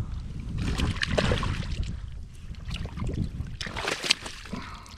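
Water splashing as a hooked walleye thrashes at the surface and is scooped into a landing net, with a burst of splashing about a second in and another around four seconds in as the net lifts the fish out of the water.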